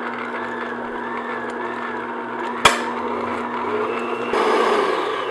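Electric stand mixer motor running steadily at medium-high speed, its paddle beating butter and sugar together, with one sharp click about two and a half seconds in. Near the end the hum drops lower and turns rougher.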